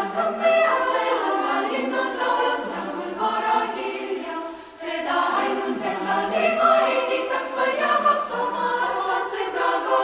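Choral singing: a group of voices singing together in harmony, with a short break between phrases just before five seconds in.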